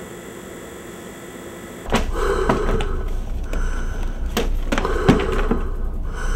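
Steady electrical hum, then from about two seconds in a low rumble with several knocks, clicks and two stretches of scraping as books and a boxed set are shifted on a wooden shelf and pulled out.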